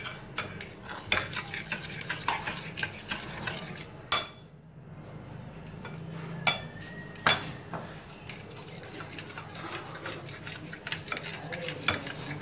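A spoon beating cream and condensed milk by hand in a cut-glass bowl: quick clinks and scrapes of the spoon against the glass, some of them ringing. After a sharper clink about four seconds in, the beating stops for about a second, then goes on.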